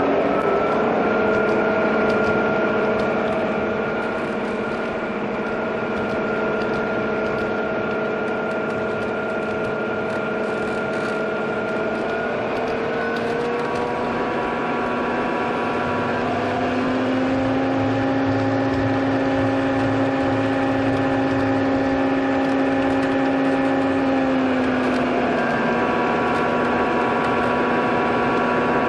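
Quadcopter camera drone's propellers humming steadily, the pitch gliding up and down a few times as it changes speed.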